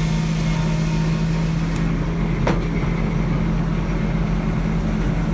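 Sawmill's engine running steadily with a constant low drone. A single short, sharp sound cuts across it about two and a half seconds in.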